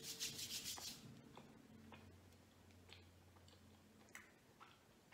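Hands rubbed together for about a second, then near quiet with a few faint, scattered clicks.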